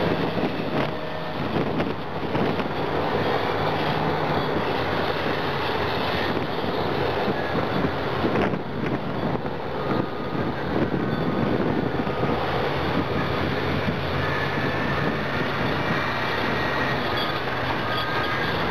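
Caterpillar 657E twin-engine scrapers working as a push-pull pair: heavy diesel engines running hard under load as they fill in the cut, then pulling out loaded. A thin high squeal comes in near the end.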